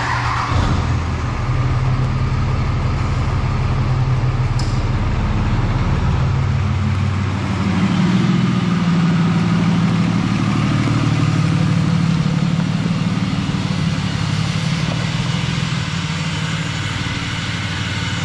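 Lifted diesel pickup truck's engine running as the truck rolls slowly past, loudest as it passes partway through.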